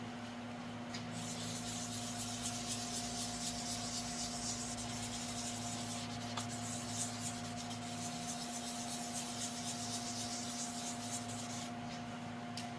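Sandpaper rubbed by hand over a surface in quick back-and-forth strokes, starting about a second in and stopping near the end, over a steady low hum.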